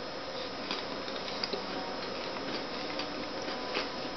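Toffee-crunch chocolates being chewed, heard as faint, irregular crunching clicks over a steady background hiss.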